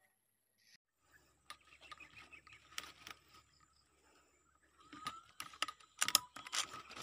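Light, irregular clicking and rustling from the rifle and scope camera being handled, starting about a second in and thickest around six seconds in.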